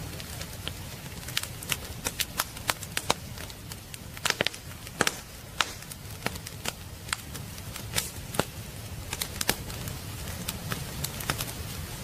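Firewood burning in a fireplace, crackling with irregular sharp pops and snaps over a steady low rumble of the flames.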